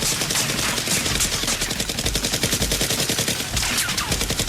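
Rapid automatic gunfire sound effects, many shots a second without a break, as two sides exchange fire in a shootout.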